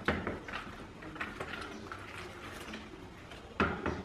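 Wooden spoon stirring banana bread batter in a plastic bowl: soft, irregular clicks and taps of the spoon against the bowl, with one louder knock about three and a half seconds in.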